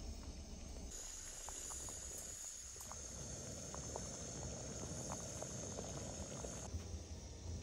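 Pot of ash reshteh, a herb and noodle soup, simmering, with small bubbles popping at an irregular pace over a low rumble.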